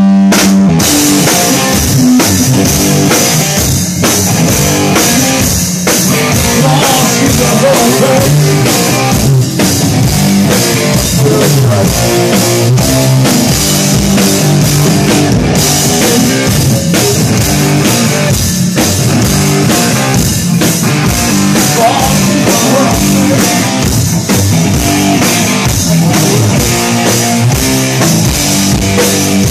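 Rock band playing live: electric guitar over a full drum kit, the whole band coming in together just after the start.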